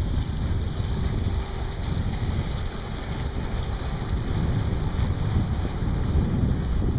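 Wind buffeting the microphone: a steady low rush that rises and falls slightly in strength.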